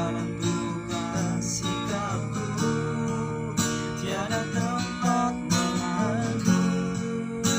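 Music: an acoustic guitar being strummed, with chords held over a wavering melody line.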